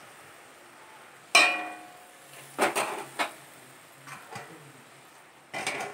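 Metal cookware clanking: one sharp, loud clank that rings briefly about a second and a half in, followed by a few lighter clatters and knocks of metal on metal.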